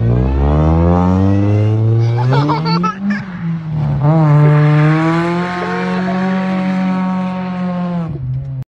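Car engine revving hard, its pitch climbing steadily for about three seconds, then held at high revs for about four seconds before cutting off abruptly.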